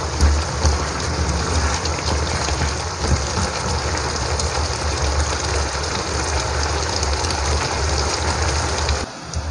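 Soy-sauce chicken sizzling and bubbling in a wok: a dense, steady crackle full of tiny pops, over a low steady hum. It stops abruptly near the end.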